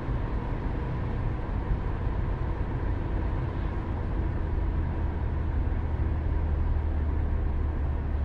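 Steady low road and engine rumble inside the cabin of a Hyundai Creta on the move.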